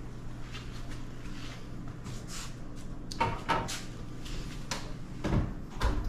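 A metal cake pan being handled out of the oven and set down on a wire cooling rack: clanks and knocks, the loudest cluster about three seconds in, with two more sharp knocks near the end. A low steady hum runs underneath.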